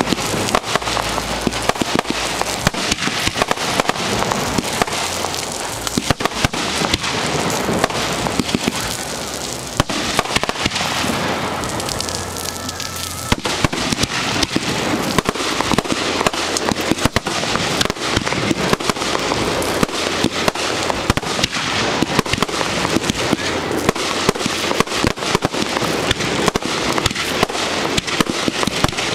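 Aerial fireworks display heard at close range: a dense, unbroken barrage of bursting shells and crackling stars, bang after bang many times a second.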